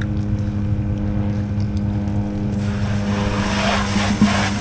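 A steady motor drone at one even pitch, joined about two and a half seconds in by a rushing hiss.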